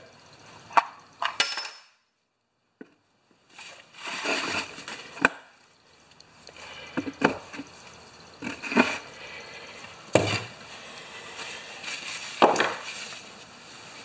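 Scattered knocks, clicks and rubbing of a plastic lawnmower wheel and tools being handled on a workbench, with the sound dropping out to silence for a moment about two seconds in.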